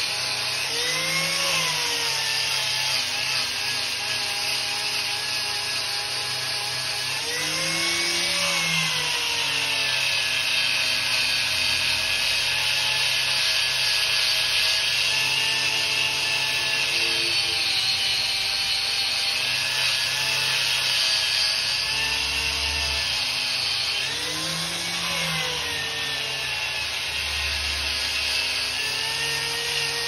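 Electric angle grinder with a sanding disc running without a break while sanding the end grain of a wooden log, a steady abrasive rasp under the motor's whine. The whine rises and falls in pitch a few times.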